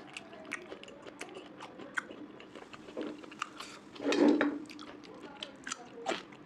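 A person chewing and biting food close to the microphone, with many short wet clicks and one louder mouth sound about four seconds in.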